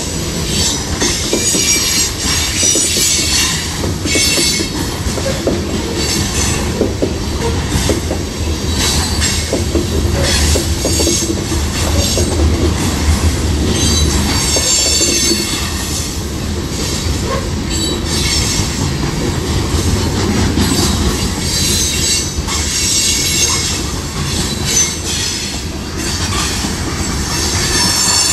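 Freight cars of a CSX train rolling past close by: a steady low rumble of steel wheels on the rails, with high-pitched wheel squeal that comes and goes and repeated clicks as the wheels pass over the track.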